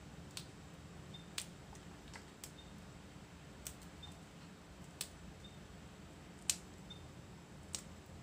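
Yard-long beans snapped by hand into pieces over a clay mortar: about eight sharp, irregularly spaced snaps, the loudest about six and a half seconds in.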